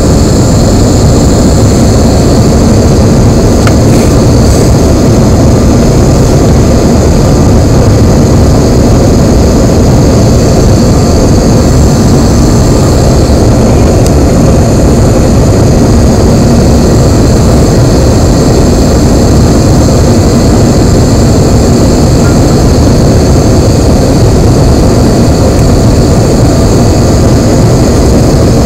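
Steady, loud cabin noise inside a Bombardier CRJ700 airliner during its approach: the rear-mounted GE CF34 turbofan engines running with airflow rushing past the fuselage, a deep rumble with a steady high whine over it.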